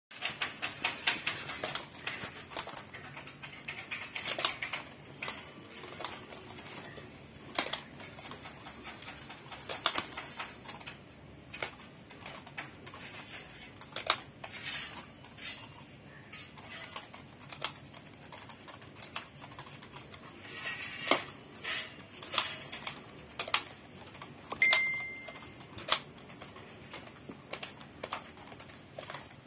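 Irregular light taps and clicks on a hard floor as a tabby cat bats and claws at a toy knife waved at it, with a brief high squeak late on.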